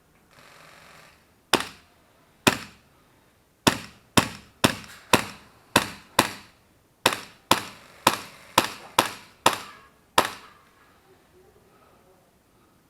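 Gas blowback airsoft gun firing about fifteen single shots at an uneven pace, each a sharp crack with a short ring, after a brief hiss.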